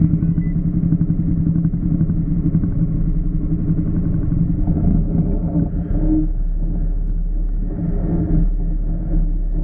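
Off-road side-by-side engine running steadily under way, with a heavy low rumble that grows from about halfway through and a few brief swells in engine note.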